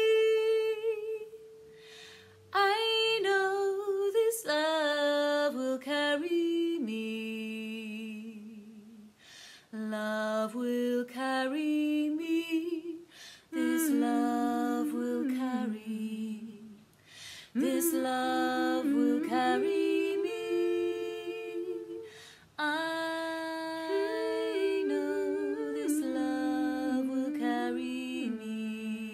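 Unaccompanied female voices in close three-part harmony, one singer's own voice layered on itself. They sing sustained phrases of a few seconds each, with short breaks between them.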